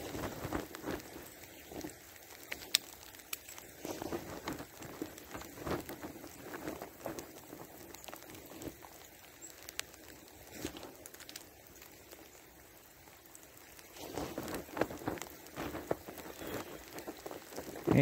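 Light sleet pattering, with many scattered sharp ticks. Louder rustling comes and goes, about four seconds in and again near the end.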